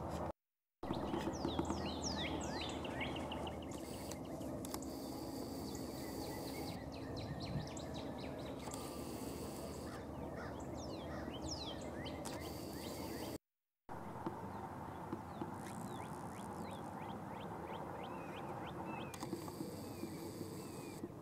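Wild birds calling outdoors: many short, quick chirps over a steady low background rumble. The sound cuts out completely twice for a moment, once near the start and once about two-thirds of the way through.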